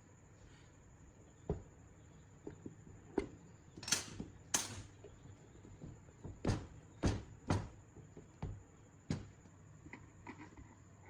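Hand work on parts and tools: irregular sharp clicks and knocks, with two short hissing swishes about four seconds in.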